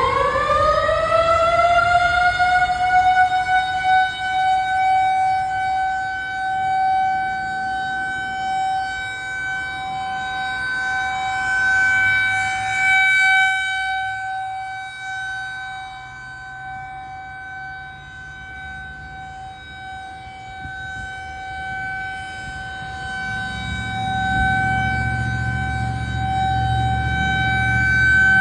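Federal Signal 2001-SRN rotating electromechanical outdoor warning siren winding up: its pitch rises over the first few seconds, then holds a steady tone that slowly swells and fades as the rotating horn sweeps toward and away from the listener. A low rumble joins in the last few seconds.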